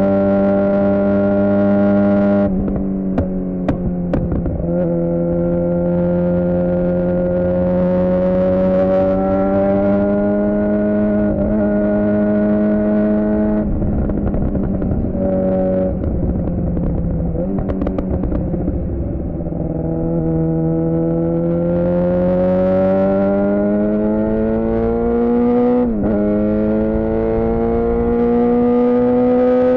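2007 Suzuki GSX-R600's inline-four engine through a Yoshimura R11 exhaust, under way on the road. The engine note climbs slowly and drops back several times, most sharply near the end, as the throttle and gears change.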